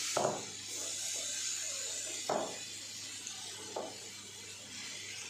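Butter sizzling faintly in a hot pan as handfuls of grated raw potato are dropped in, with three soft knocks.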